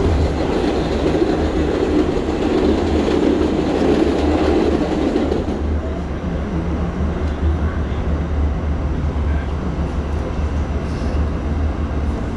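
A subway train running on open track, heard from inside a car, with a steady low rumble. For about the first five seconds an R68 subway car passes close by on the next track, adding a loud wash of wheel and rail noise that then drops back to the running rumble.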